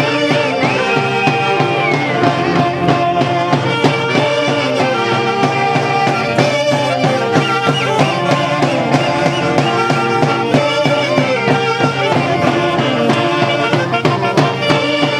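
Andean orquesta típica from Huancayo playing santiago music: several wind instruments carrying the melody together over a steady beat.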